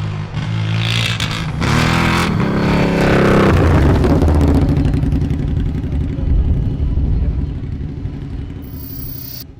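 Honda Mean Mower's 1000 cc V-twin motorcycle engine, taken from a VTR1000 FireStorm, revving hard several times over the first few seconds. It then settles into a steadier run and fades out near the end.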